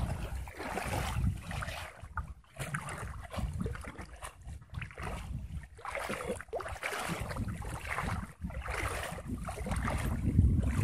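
Shallow water sloshing and splashing in irregular rushes from wading through floodwater and hands working a fishing net in the water, with wind buffeting the microphone.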